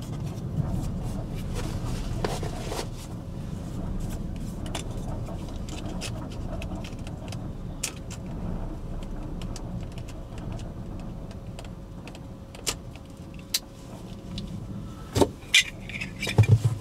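Steady low rumble of a running vehicle, with scattered light ticks throughout and a few louder knocks near the end.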